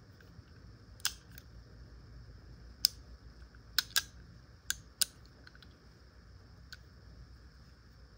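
Remington Model 95 double derringer's hammer and action worked by hand, giving a string of sharp metallic clicks at uneven intervals, two of them in a quick pair just before the middle.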